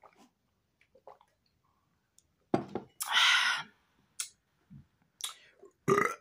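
A person drinking in gulps, then breathing out hard and breathy after the sip, with a few lip smacks, and a short burp near the end.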